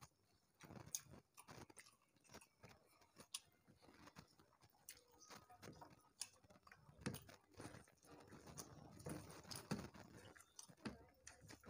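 Faint chewing and mouth smacks of people eating rice by hand, with scattered soft clicks from fingers mixing rice on the plates.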